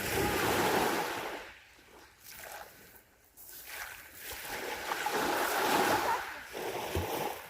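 Sea waves washing onto the shore, surging in twice: a short wash at the start and a longer one that builds from about three and a half seconds in and then eases off.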